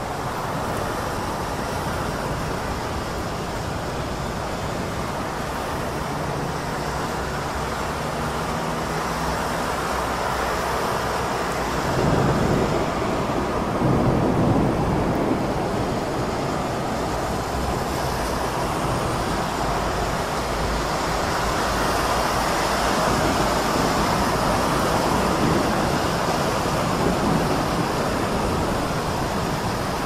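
Heavy rain falling in a city, a steady hiss, with traffic on the wet road. About twelve seconds in, a deeper rumble swells for a few seconds and then fades.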